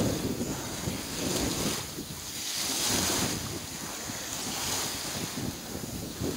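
Strong wind blowing over the microphone, a steady rushing noise that swells in gusts, over choppy lake water breaking in small waves.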